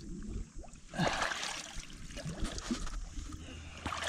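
Water splashing and trickling, with a short splash about a second in.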